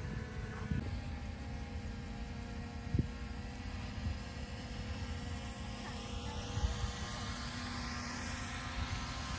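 Heavy diesel machinery engine running steadily with a low rumble, and a single short knock about three seconds in.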